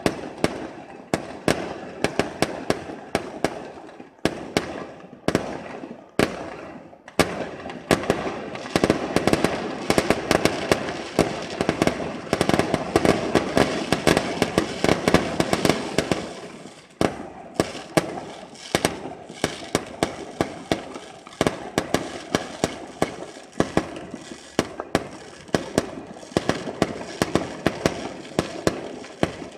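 Fireworks display: a rapid string of aerial shell bursts and bangs, several a second, thickening into a near-continuous roll of bangs and crackle in the middle.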